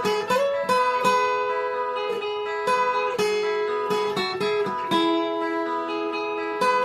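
Background music of plucked acoustic guitar, picked notes ringing over one another in a gentle melody.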